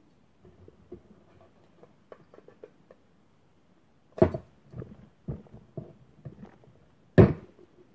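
Tin snips cutting through thin aluminium plate: a series of sharp snaps as the blades bite and close, the loudest about four seconds in and again near the end, with lighter clicks of the metal being handled in between.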